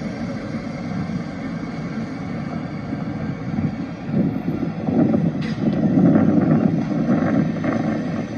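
City street traffic: cars running past close by as a steady rumble, swelling to its loudest as a vehicle goes by in the second half.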